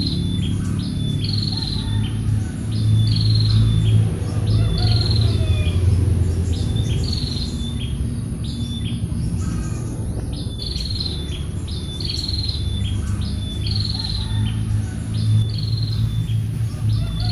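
A bird calling over and over, a short falling note about once a second, pausing for a few seconds about halfway through, over a steady low rumble.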